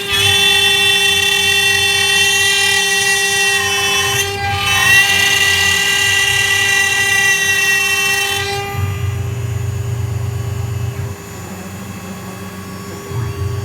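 A CNC router's spindle cutting through jackfruit wood, giving a steady high whine made of many tones that dips briefly in pitch twice. About eight and a half seconds in the high whine stops, leaving a lower machine hum.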